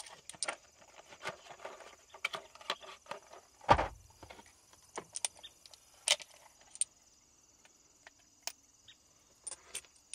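Metal clicks and rattles of .500 S&W Magnum cartridges being taken from their box and loaded into the cylinder of a Smith & Wesson 500 revolver, with one heavier thump a little under four seconds in.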